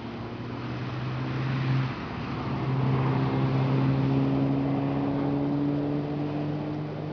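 A motor vehicle's engine running, a steady drone that grows louder over the first couple of seconds, drops briefly about two seconds in, then holds and fades near the end, as a vehicle passing would.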